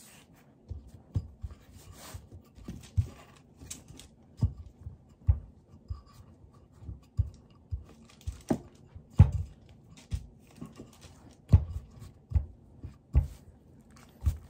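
A wooden rolling pin rolling out bread dough on a wooden board: irregular soft knocks and thumps as the pin and hands press down, with faint rubbing between them.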